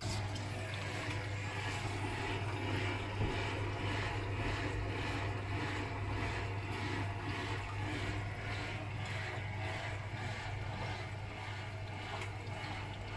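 Miele W Classic front-loading washing machine running early in a 60 °C wash: a steady motor hum while the drum tumbles the wet laundry, with water swishing in an even rhythm of about two pulses a second.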